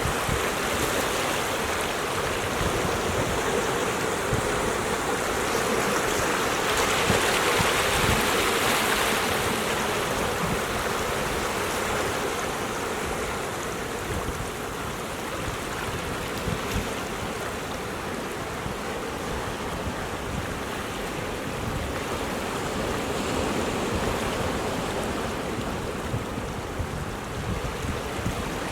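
Pacific surf washing against a rocky shore: a steady rush of breaking waves that swells a little louder about a quarter of the way through, then eases.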